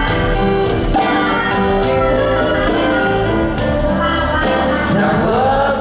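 Live rock band playing an instrumental passage: electric guitars and bass over drums keeping a steady beat, with a tambourine-like jingle.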